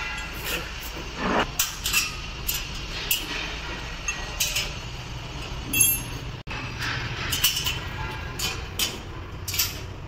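Irregular metallic clinks and scrapes of galvanized perforated steel cable tray sections being folded into a T-bend and fitted together by hand, with a spanner working at the joints.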